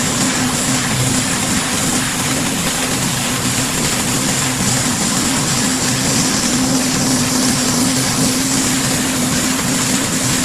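Pressure washer running steadily: an engine hum under the hiss of high-pressure water spray.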